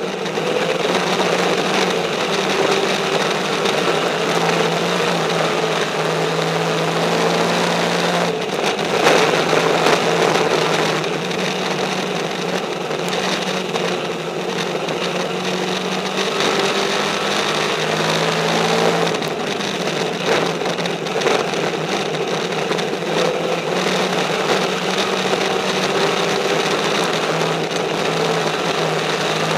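Race car engine heard from inside the cockpit at racing speed, its pitch rising and falling every several seconds as the throttle comes on and off through the turns, over steady wind and track noise.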